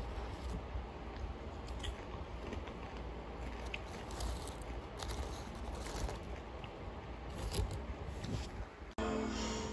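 A crinkly chip bag rustling and the chips inside clattering as chopsticks dig through them and pick chips out, in short irregular crackles. Music comes in near the end.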